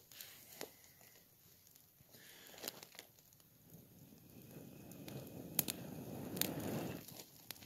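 A person blowing a long, steady breath onto smouldering embers to fan a small campfire into flame, from about halfway through to near the end. A few sharp crackles of burning twigs and sap pop through it.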